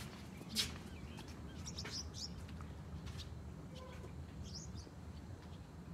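A low steady rumble of the boat running over the water, with a sharp knock shortly after the start and a few fainter clicks. Short high bird chirps come in two brief clusters, about two seconds in and again past four seconds.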